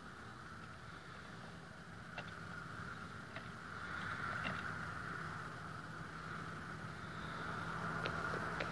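A steady engine-like hum under a hiss, the hum growing clearer a few seconds in, with a few faint sharp clicks scattered through.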